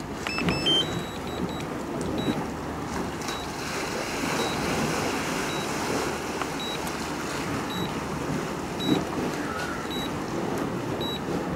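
Steady outdoor wind-and-surf rushing, with a short high beep repeating about once a second: the drone controller's warning that the link to the DJI Mavic Air 2 has been lost.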